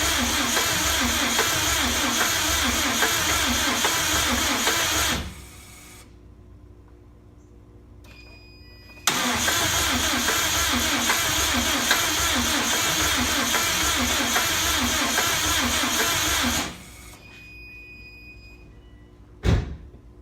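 Subaru EJ205 turbo flat-four cranking on the starter without catching, with an even rhythm of about two pulses a second. There are two long cranking attempts, about five and about eight seconds long, with a pause between them, then one short sharp thump near the end. This is a no-start after the engine swap.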